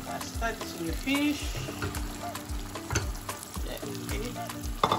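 A wooden spatula stirring smoked catfish in a stainless-steel pot of hot tomato sauce, sizzling, with short scrapes and knocks against the pot. Afrobeat background music with a steady beat plays underneath.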